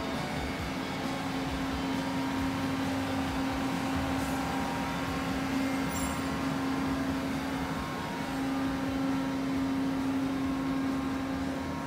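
Steady hum of an idling, powered-up Mori Seiki SL-35 CNC lathe, its hydraulic unit running with the chuck clamped, carrying one steady low tone.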